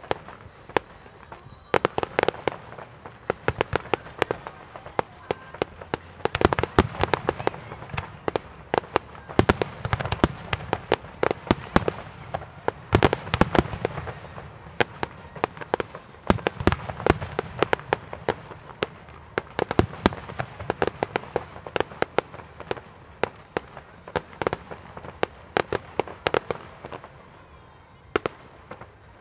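Fireworks display: a rapid, irregular barrage of shell bursts and bangs, dense through most of it and thinning out near the end.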